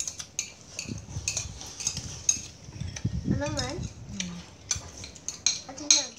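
Metal spoons clinking and scraping on china plates and bowls as people eat rice and soup, a rapid irregular run of sharp clicks. A short wavering call, like a voice, sounds a little past halfway.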